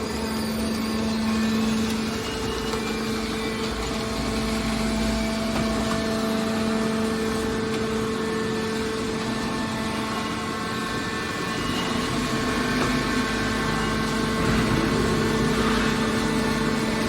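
Hydraulic waste metal baler running: a steady hum from its motor and hydraulic pump, with two held tones and no clear impacts.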